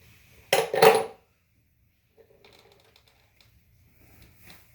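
A loud metallic clatter about half a second in, then faint clicks of metal parts and tools being handled as the front axle and wheel hardware of a motorcycle come apart.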